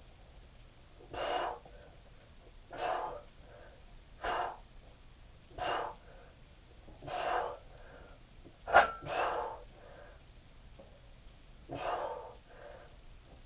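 A man's forceful breaths on each rep of a barbell bench press set, about seven of them, roughly one every second and a half, with a longer pause before the last. A single sharp click about nine seconds in is the loudest sound.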